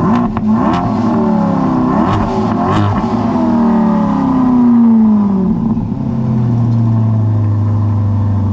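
Chevrolet C8 Corvette's V8 blipped from idle several times in quick succession, with sharp pops on the first few blips, then revved once more and let fall back, settling to a steady idle about six seconds in.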